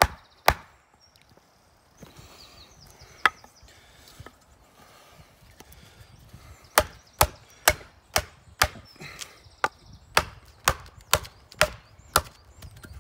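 A wooden mallet strikes the spine of a 1075 carbon-steel bushcraft knife, batoning the blade down through a short round of wood. There are sharp wooden knocks: two at the start, a single one about three seconds in, then a quick run of about a dozen, roughly two a second, from about seven seconds in.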